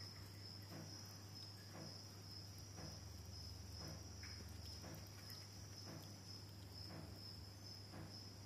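Quiet room tone: a faint, steady, high-pitched insect-like trill over a low hum, with soft ticks about once a second.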